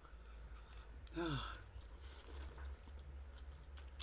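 A person's short vocal sound, falling in pitch like a sigh, about a second in, among faint scattered clicks. A sharp click comes right at the end.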